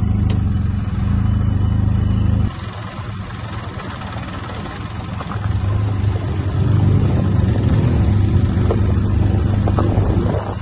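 Benelli TRK 502 X adventure motorcycle's parallel-twin engine running while riding. The engine sound drops suddenly about two and a half seconds in, then picks up again from about five seconds and runs steadily, with some clatter of loose stones under the tyres.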